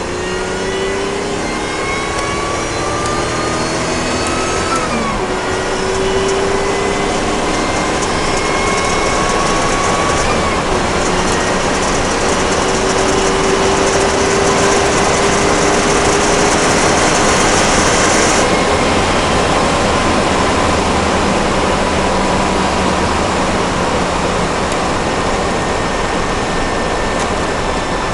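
Opel Monza's supercharged 3.0 CIH straight-six pulling through the gears, its pitch rising steadily and dropping at gear changes about 5 and 10 seconds in, with a rattle like pebbles: knocking caused by too high compression combined with boost, unadapted ignition timing and no intercooler.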